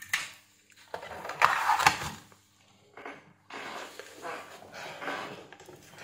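Handling noises on an electronics workbench: a few knocks and scrapes as things are moved and set down, the loudest about one to two seconds in.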